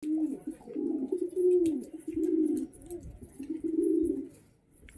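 White domestic pigeons cooing: a run of low, bending coos with short gaps between them, dying away shortly before the end.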